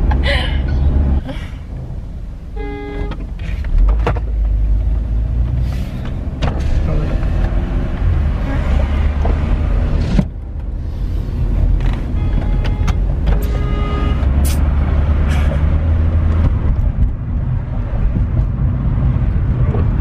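Car cabin noise while driving, a steady low engine and road rumble. Short car-horn honks from outside sound about three seconds in and twice more around thirteen seconds.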